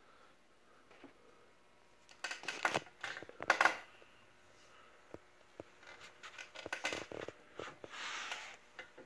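Handling noises around a small metal model-engine stand: a cluster of sharp clicks and rattles two to four seconds in, then scattered clicks and a short scraping rustle near the end.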